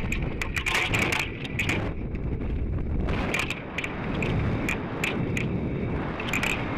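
Rush of air on a sounding rocket's onboard camera microphone during descent, broken by irregular sharp crackles and clatters from the fluttering, partly inflated drogue ballute, which failed to inflate fully and shredded.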